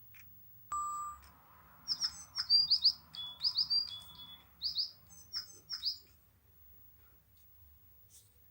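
A bird singing: a quick run of high chirps and short whistled notes lasting a few seconds, preceded by a short steady high tone about a second in.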